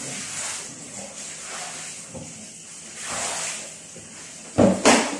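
Kitchen cleaning work at a counter: soft rubbing swishes that come and go, then two loud knocks in quick succession near the end, like something hard set down or shut.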